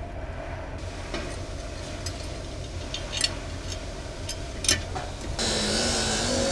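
A few scattered light metallic clicks and clinks, as of bolts and metal forge parts being handled, over a steady low hum. About a second before the end the background switches abruptly to a louder steady hiss.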